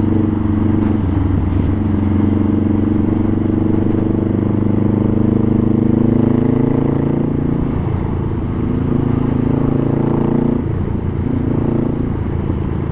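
Honda Rebel 500's 471 cc parallel-twin engine running through an aftermarket full-system exhaust while riding, a steady and fairly loud exhaust note. Its pitch climbs slowly and changes about eight seconds in and again near ten and a half seconds.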